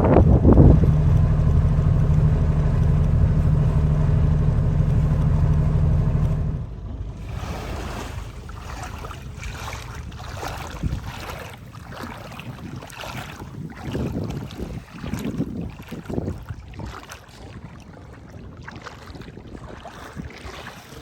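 Ranger Tug R-21EC's engine running steadily under way, then cutting off suddenly about six seconds in, leaving wind on the microphone and water washing and splashing against the hull.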